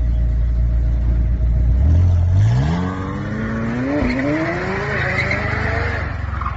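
McLaren 720S twin-turbo V8 holding a low note for about two seconds, then revving up hard under acceleration, its pitch climbing steadily with a brief dip about four seconds in. Tyres squeal over the rising engine as the rear breaks loose and the car slides sideways.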